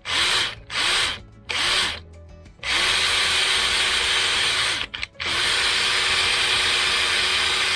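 Cordless drill boring a 6 mm hole into the end of a timber table leg, through a glued-in dowel. Two short pulls of the trigger in the first two seconds, then a steady run from about three seconds in, broken by a brief stop about five seconds in.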